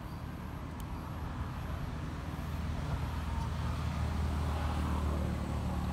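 Low, steady rumble of a motor vehicle engine that grows louder about halfway through, like a vehicle drawing nearer.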